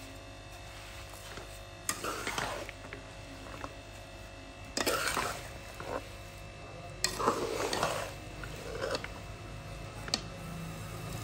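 Perforated metal ladle stirring a thick, sugared mixture of lentils and nuts in a large aluminium pot. There are a few scraping strokes about two to three seconds apart, each opening with a clink of metal on metal, over a steady low hum.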